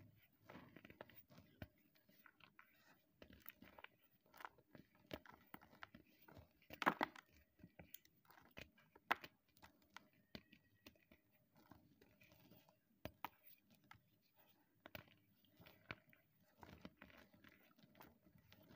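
Blocks of gym chalk crumbling and crunching between bare fingers: a stream of soft, irregular crackles with a few sharper snaps, the loudest about seven seconds in.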